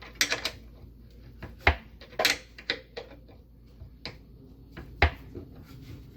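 Irregular clicks and knocks of a screwdriver driving a screw into a wooden cabinet face plate until the washer is snug. Two heavier knocks come about one and a half seconds in and about five seconds in.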